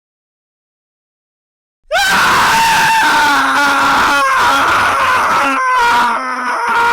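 Silence, then about two seconds in a man's scream starts abruptly and is held loud and strained, its pitch wavering, with a short break near the end before it goes on.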